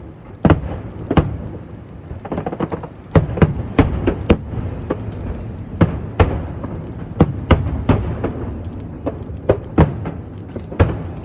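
Fireworks shells bursting one after another, a long string of sharp bangs, one to three a second, with a low rumble between them.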